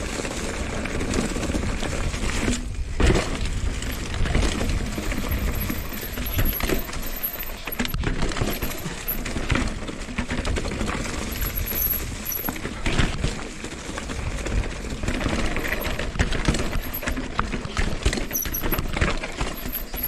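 Mountain bike clattering down a rocky trail: irregular metallic clinks and knocks from the chain and frame as the tyres hit rocks, over a steady low rumble.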